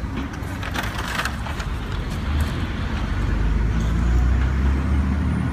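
A motor vehicle's engine running, louder in the second half, with a short scuffing noise about a second in.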